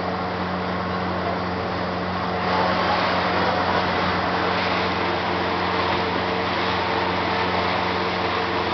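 Pontoon boat under way: a steady motor hum under a rush of wind and water. The rushing noise grows louder about two and a half seconds in.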